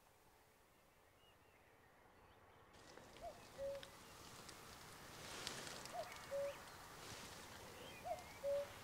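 Common cuckoo calling its two-note 'cu-ckoo', the second note lower than the first, three times about two seconds apart. Faint high chirps of other small birds sound behind it. The sound fades up from near silence over the first few seconds.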